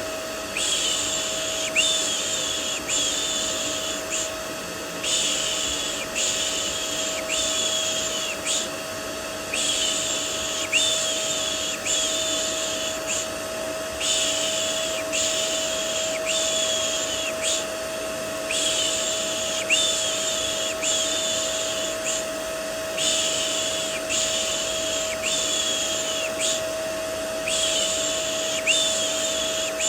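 Vacuum cleaner motor running steadily with a constant hum, layered with a repeated soothing 'shh' shushing sound. The shushes come in groups of about four short hisses, each group repeating about every four and a half seconds.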